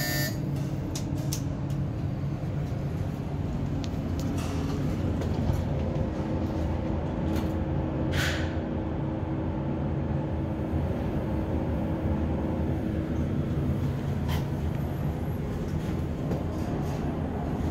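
Glass elevator cab travelling between floors: a steady low hum and rumble of the moving car, with light clicks and a short hiss about eight seconds in.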